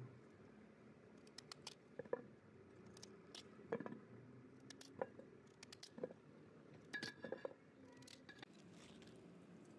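Small kitchen knife cutting a raw potato held in the hand, giving irregular crisp slicing clicks, with cut pieces dropping onto a metal plate.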